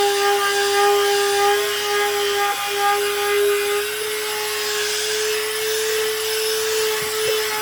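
Electric power tool working wood: a steady motor whine with a rasping hiss from the cut or sanding, its pitch sagging slightly now and then under load.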